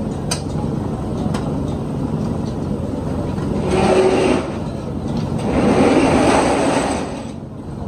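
Street traffic noise: a steady rumble of vehicles, with two louder vehicles passing about four and six seconds in.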